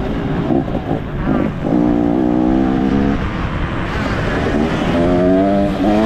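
Pit bike engine revving hard, its pitch sweeping up and then holding at steady plateaus in turn, like a bike being ridden through the throttle and gears, over a constant low rumble.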